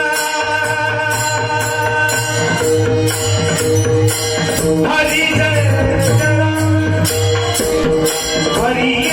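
Marathi devotional kirtan music: sustained instrumental tones under a steady jingling hand-percussion beat, with a singer's voice sliding upward about five seconds in and again near the end.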